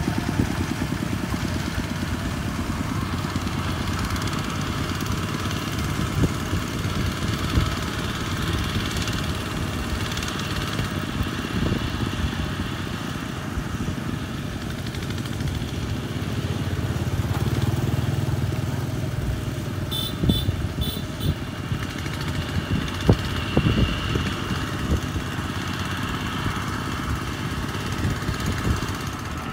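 Single-cylinder diesel engine of a Kubota RT140 walking tractor chugging steadily under load as it drags a loaded rice trailer through mud, with a fast, even thumping beat. Other tractor engines run along with it, and a few sharp clicks come about two-thirds of the way through.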